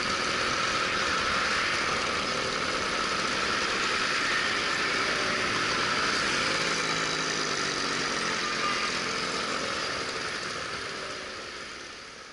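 Scooter engine running at low speed in city traffic, under a steady rush of wind noise on the action camera. An engine note with a clear pitch comes through in the middle, and the whole sound fades out over the last couple of seconds.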